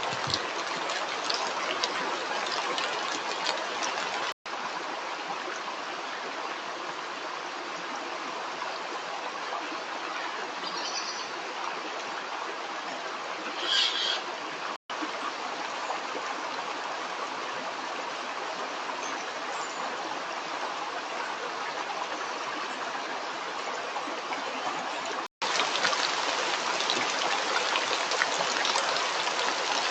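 Running water of a stream, a steady rushing flow, broken by three short dropouts where the recording is cut. A brief high-pitched sound stands out a little past the middle.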